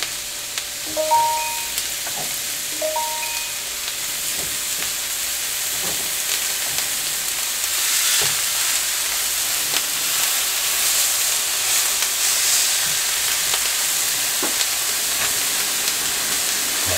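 Raw ground beef patties sizzling as they are laid on a hot griddle beside frying sliced onions, with a steady hiss that grows louder about halfway through as more patties go down.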